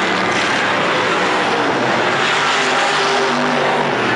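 Dirt-track sportsman race cars' engines running hard at racing speed as they pass, loud and steady, with several engine notes shifting in pitch.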